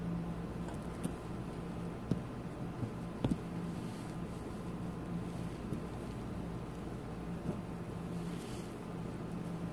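Steady low mechanical hum with a faint tone that fades in and out, and a few light metal clicks from the surgical instruments about two and three seconds in, as the needle driver and forceps work the suture.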